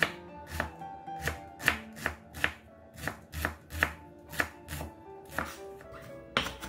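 Chef's knife dicing a shallot on a bamboo cutting board: an even run of chops, about two to three a second, the blade knocking on the wood.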